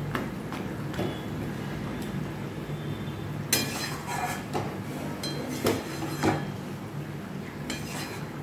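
A metal spatula clinking and scraping against an aluminium kadai while breaking up fish heads in a potato curry, in scattered knocks and scrapes, the sharpest about three and a half seconds in and two more around six seconds. A steady low hum runs underneath.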